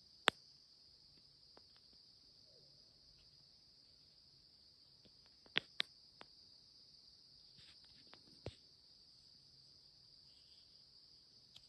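Steady, high-pitched chorus of insects in the field and woods. A few sharp clicks cut in: one loud one just after the start, two close together about five and a half seconds in, and a softer one a little later.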